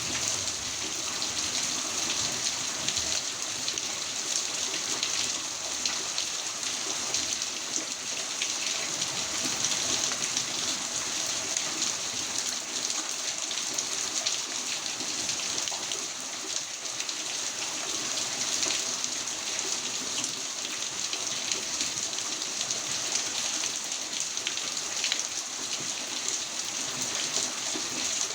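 Heavy rain pouring steadily: a dense, even hiss of countless drops.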